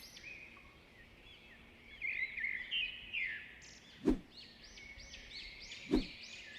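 Small birds chirping and twittering continuously, with two short sharp hits about four seconds in and again two seconds later.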